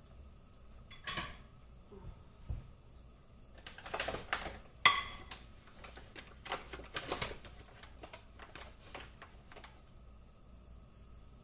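Irregular sharp metallic clicks and light clattering in a kitchen, bunched about four to five seconds in with one sharp click the loudest, then thinning out, over a faint steady high hum.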